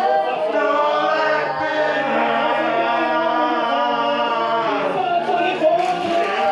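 Several voices chanting in long held, slowly wavering pitches over a low steady tone.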